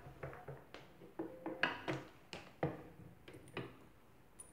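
Steel hooks of a coil spring compressor clinking and knocking against a strut's coil spring as the tool is positioned on it: a string of irregular, separate metallic clicks and clanks.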